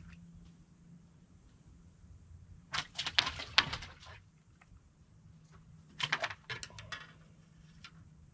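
Handling noise from fishing tackle as the line and hook are worked by hand: two short bursts of quick clicks and rattles, about three seconds in and again about six seconds in, over a faint low hum.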